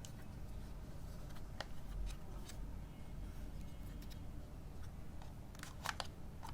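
Small handling noises: a few light clicks and scrapes, then a quick cluster of sharper clicks near the end, over a low steady hum.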